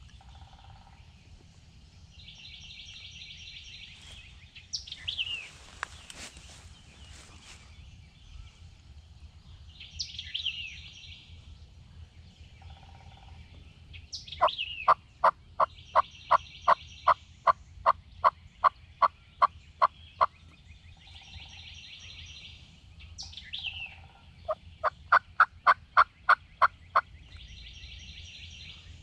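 Turkey yelping: two long runs of evenly spaced yelps, about three a second, the second run shorter. Songbirds chirp and whistle in between.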